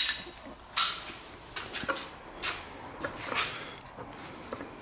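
Metal parts knocking and clinking, about half a dozen short, sharp strikes over a few seconds, as a piston and connecting rod are worked out of a BMC A-series engine block and handled.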